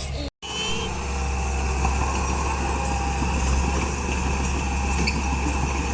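Komatsu D31P bulldozer's diesel engine running steadily with a deep, even hum, broken by a brief gap in the sound near the start.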